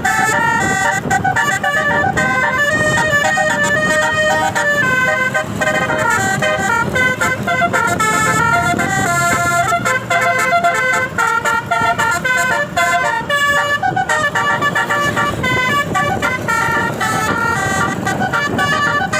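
Tour bus's multi-tone 'telolet' air horn (Basuri horn) playing a melody of quick, stepping notes, with people's voices mixed in.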